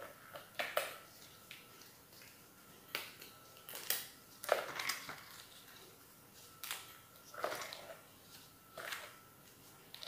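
Steamed sea crab shells cracking and crunching as gloved hands break them apart: a handful of short crunches spread out, with quiet between.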